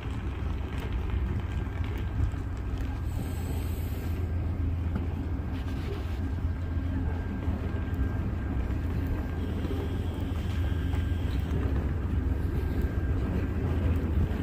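Steady low rumble of a vehicle, with a faint thin high tone above it.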